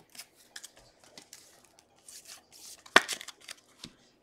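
Foil trading-card pack wrappers crinkling and tearing as cards are handled, a run of short rustles and clicks with one sharp, loud snap about three seconds in.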